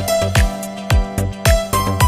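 Background music with a steady beat, a little under two beats a second, and a melody over held notes.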